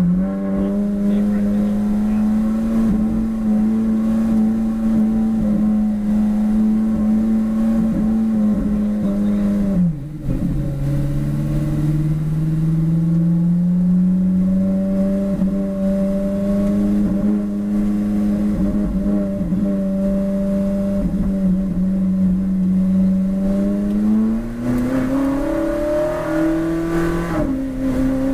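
Ferrari 458 Challenge's 4.5-litre V8, heard from inside the cockpit, running at steady low revs in first gear. About ten seconds in the pitch drops with an upshift to second. The revs then climb slowly, rise faster near the end, and drop again with a shift into third just before the end.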